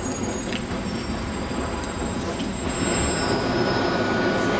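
London Underground train running, a steady rumble with thin, high wheel squeals over it. It grows a little louder about three seconds in.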